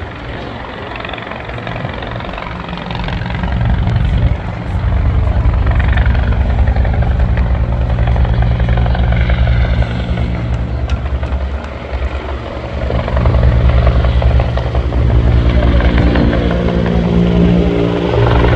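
Bell 412EP helicopter running loud: its four-bladed main rotor beats rapidly over the steady drone of its twin turbine engines. It grows louder about four seconds in, eases briefly past the middle, then builds again.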